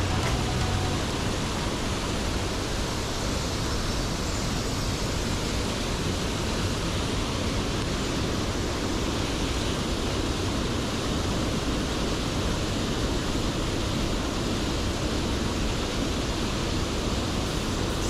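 Water pouring over a low stream weir into the plunge pool, a steady rushing roar.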